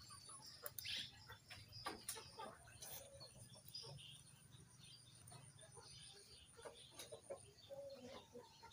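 Faint yard sounds: bantam chickens clucking now and then, with short high chirps and a few light clicks.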